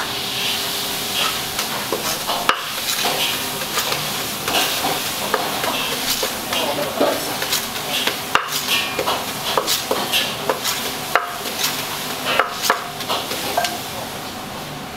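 Papaya salad being mixed and pounded in a mortar: irregular knocks and scraping of the pestle and spoon over a steady hiss.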